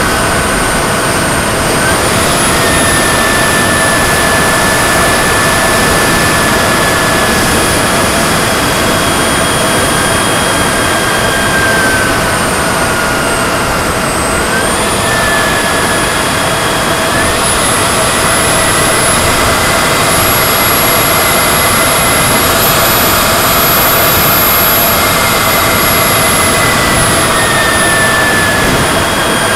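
Turbine engine of a Shockwave RC model jet, heard from a camera on board in flight: a steady high whine over a loud rushing noise. The whine steps up and down with the throttle, dropping about twelve to fourteen seconds in, climbing again just after, and easing off near the end.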